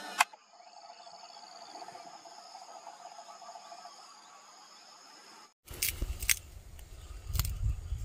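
A brief click, then a faint steady insect drone made of a few thin unchanging tones. About five and a half seconds in it cuts off abruptly and gives way to a low rumble on the microphone with several sharp knocks.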